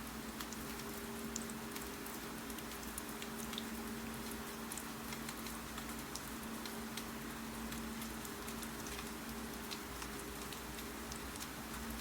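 Steady rain with many light, irregular clicks of keyboard typing over it, and a faint steady low hum underneath.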